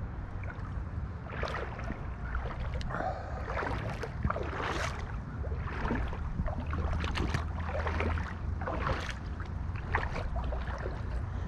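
River water running, with irregular splashing and sloshing close by over a steady low rumble.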